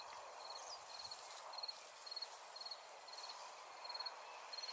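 An insect, a cricket or bush-cricket, chirping faintly in short high pulses repeated about every half second, over a steady outdoor hiss.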